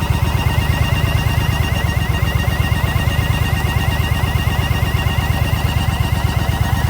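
Yamaha XV950 Bolt's air-cooled V-twin idling with a steady, even pulse, a thin warbling tone riding above it. The abnormal noise comes from an air leak at the intake manifold.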